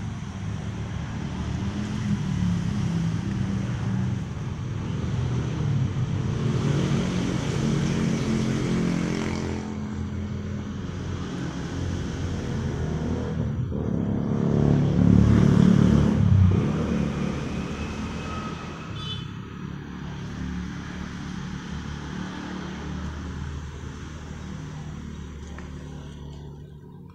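Motor vehicle engines passing by on a road, swelling twice, the louder pass a little past halfway, then fading toward the end.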